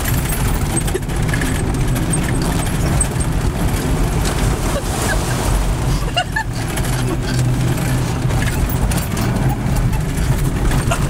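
A vehicle driving fast on a wet, muddy dirt road, heard from inside the cab: steady engine and tyre rumble, with puddle water splashing up over the windshield about six seconds in.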